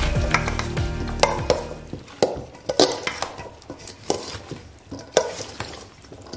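A metal spoon stirring and tossing a dressed chopped vegetable salad in a stainless steel mixing bowl, with irregular clinks and scrapes of spoon against steel over wet, squelchy mixing.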